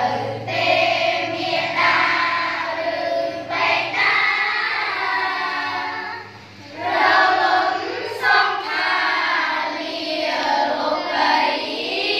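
A class of schoolchildren chanting a Khmer recitation in unison, many young voices in a sing-song group recital, with a short pause between lines about halfway through.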